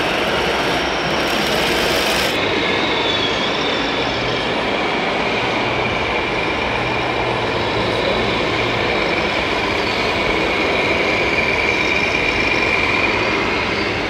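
Radio-controlled scale model trucks and construction machines running: a steady mechanical rumble, with a thin high whine held from about two seconds in to near the end.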